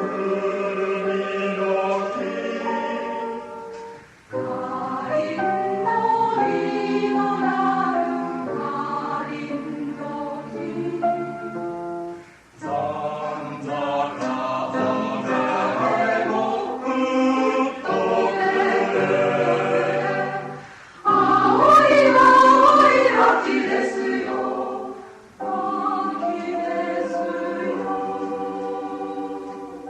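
Mixed choir singing a Japanese children's song in several voice parts. The singing comes in phrases broken by four brief pauses, and the loudest phrase comes about two-thirds of the way in.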